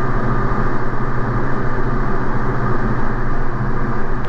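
Diamond DA40's piston engine and propeller at full takeoff power, a steady loud drone inside the cockpit during the climb-out.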